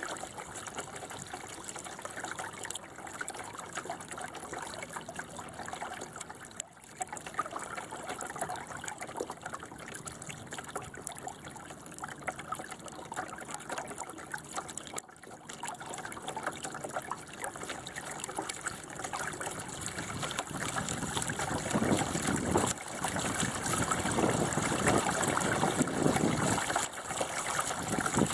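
Water rushing and splashing along the hull of a small Bauer 10 sailing dinghy under way, growing louder and rougher about three quarters of the way through.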